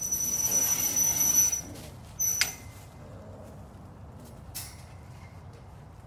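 Metal sliding lockout door in a cat enclosure scraping along its track with a high, steady screech, then a second short screech that ends in a sharp metal clank about two and a half seconds in.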